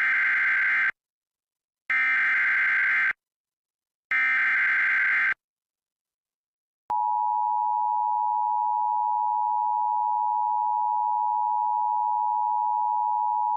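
Emergency Alert System header: three short buzzy data bursts of the SAME code. A second of silence follows, then the long steady attention tone that announces a new weather warning.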